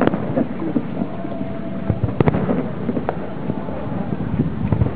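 Distant fireworks display: a few sharp bangs of shells bursting, spread out across the seconds, over a steady background rumble.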